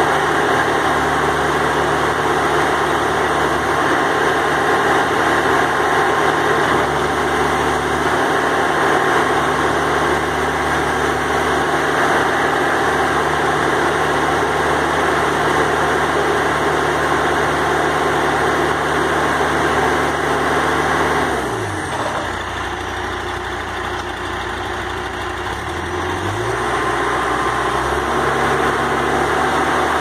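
John Deere 310SG loader backhoe's diesel engine running at raised speed while the backhoe and loader hydraulics are worked. About two-thirds of the way through, the engine speed drops sharply and the sound gets quieter; some five seconds later it climbs back up.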